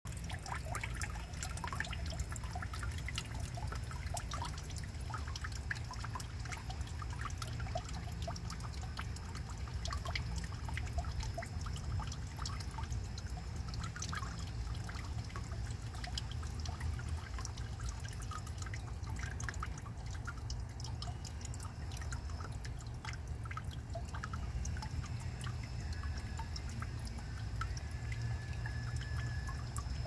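Water trickling and dripping, with many small irregular ticks over a steady low rumble.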